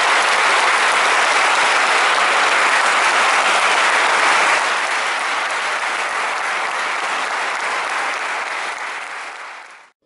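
Applause: a line of volleyball players clapping together, steady at first, easing a little about halfway and fading out just before the end.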